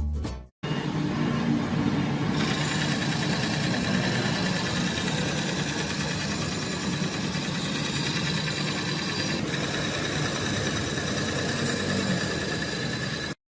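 Makita LB1200F band saw running: a steady electric-motor and blade noise with a faint whine. It turns hissier about two seconds in and stops abruptly near the end.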